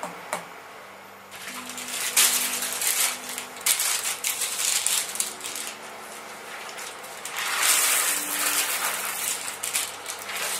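Baking paper crinkling and rustling as it is crumpled and laid in a pastry-lined tart tin, then, from about seven seconds in, dried beans poured onto it as baking weights, rattling with many small clicks.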